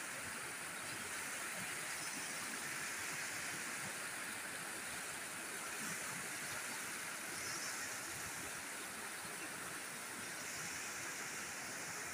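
Irrigation water gushing out under the steel sluice gates of a concrete headworks and tumbling down the concrete spillway channels: a steady rush of white water.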